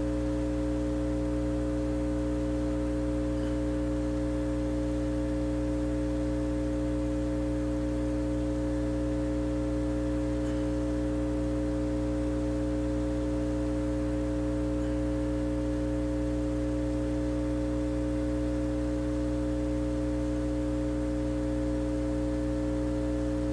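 Hot air rework station's blower running steadily: a constant hum with two steady tones and a faint hiss of air, as the hot air melts solder balls through a reball stencil.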